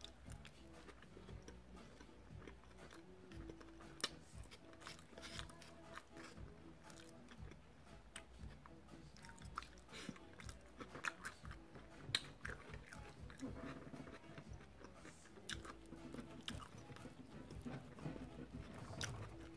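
Close-up chewing of a mouthful of burrito: quiet, irregular wet mouth clicks and smacks.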